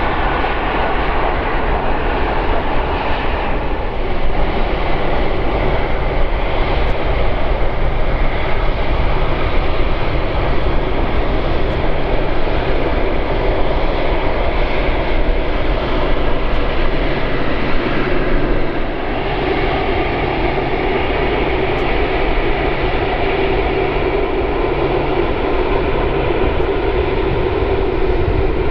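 Rolls-Royce Trent 772B-60 engines of an Airbus A330-300 airliner running as it rolls out along the runway just after landing. The steady jet noise gets louder about four seconds in and eases off somewhat about two-thirds of the way through.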